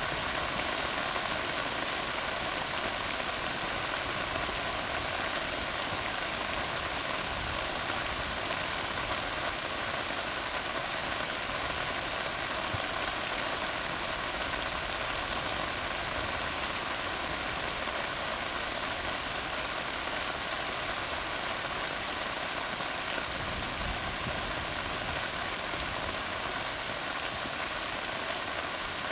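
Steady rain falling on a tar road, a dense even patter with scattered sharper drop ticks.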